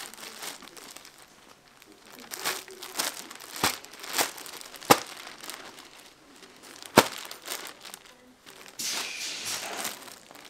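Clear plastic packaging bag crinkling as stacks of folded scarves are slid into it and the plastic is smoothed down, with several sharp crackles of the plastic and a denser stretch of crinkling near the end.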